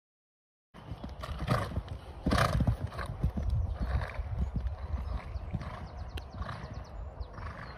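Horse cantering on an arena's sand footing: dull hoofbeats at a steady stride rhythm, a little faster than one a second, over a low rumble of wind on the microphone. It starts after a short silence.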